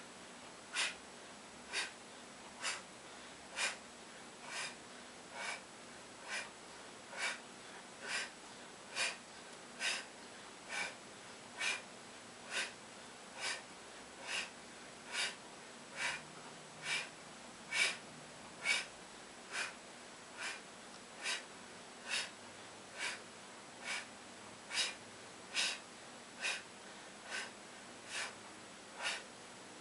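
A man's short, forceful breaths blown out through the mouth, one with each crunch as he tightens his stomach, in an even rhythm of about one a second.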